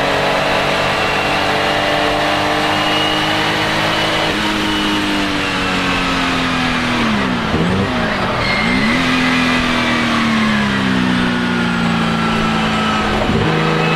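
Porsche 935 K3's twin-turbo flat-six racing engine running hard, then easing off with the pitch falling. Around the middle come a quick series of sharp dips and rises in pitch, like rev blips on downshifts, before it pulls again and settles at a lower, steady note.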